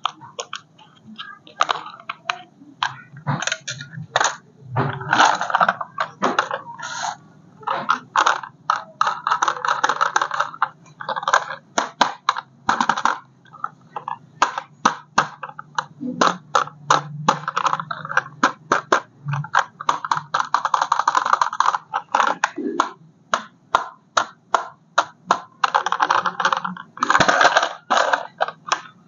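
Plastic packaging crinkling and rustling, broken up by many sharp clicks and taps of hard plastic parts being handled.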